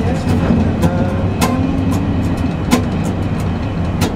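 Steady rumble of a moving train heard inside the carriage, with an acoustic guitar strummed a few times as separate chords that ring briefly.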